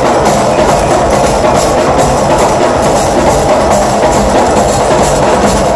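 Live drum ensemble playing loud and fast together, with drum kits, timbales, cymbals and a hand drum making a dense, steady beat.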